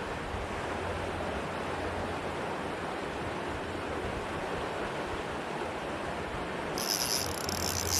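Steady rush of fast-flowing floodwater in a creek, with a high hiss joining near the end.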